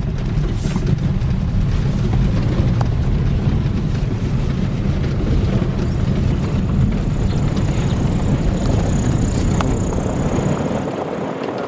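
Car driving along a dirt road, heard from inside the cabin: a steady low rumble of engine and tyre noise that eases near the end.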